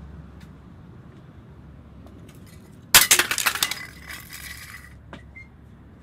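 A sudden smash about three seconds in as hard objects hit a concrete walk and break, with pieces clattering and scattering for about a second. A piece keeps ringing and rattling as it settles, and there are a couple of small clicks near the end.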